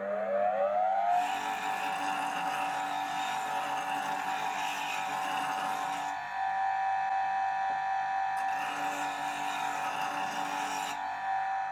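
Bench grinder whining as its motor comes up to speed, the pitch rising and settling about a second in. It then runs steadily while a steel chisel is ground against its white wheel, a hissing rasp of metal on the stone that stops near the end.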